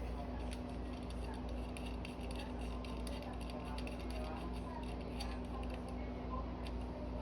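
Faint light ticks and clicks of small metal parts being handled as a bolt is threaded by hand into the chain slider's back plate, over a steady electrical hum and faint background voices.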